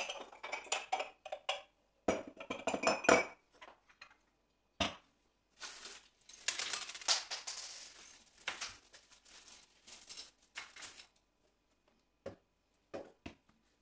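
Ceramic mugs clinking against each other and the shelf as they are lifted down, in two quick clusters of clinks. After that comes several seconds of hissy scraping, then a few light knocks as a flower pot is handled on the shelf.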